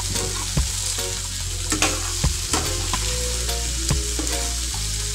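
Chopped unripe jackfruit sizzling in a frying pan as it is stirred, with the metal utensil clicking and scraping against the pan every half second or so.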